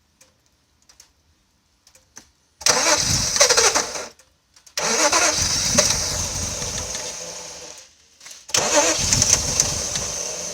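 Mazda KL-DE 2.5-litre V6 engine, said by its owner to have a knock, heard in three bursts of running. Each burst fades away, with short quiet gaps between them; before the first there are a few faint clicks.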